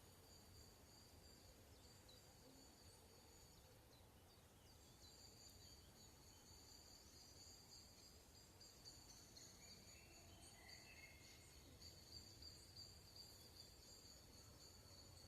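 Faint, steady high-pitched insect trill, with a few brief bird chirps about two-thirds of the way through.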